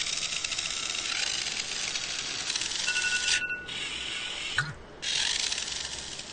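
Mechanical alarm clock bell ringing, a rapid metallic clatter that breaks off briefly about three and a half seconds in and again just before five seconds, then fades toward the end.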